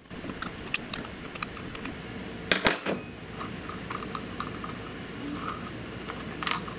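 Light metallic clicks and clinks of hands handling a freshly machined piston and its bolted ball-joint fixture on a mini milling machine table. A cluster of louder clinks comes about two and a half seconds in, over a steady low background noise.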